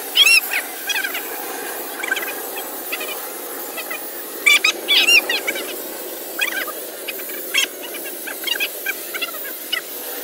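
Small toy quadcopter's propellers buzzing steadily as it hovers, under repeated short, high-pitched chirping calls that come in irregular bursts.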